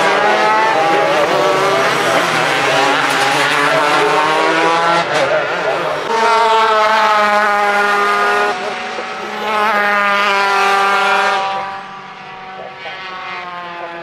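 Racing superkarts' two-stroke engines at high revs as a line of karts passes. About six seconds in, one kart's engine takes over: its pitch climbs, dips briefly, climbs again, then drops in level near the end.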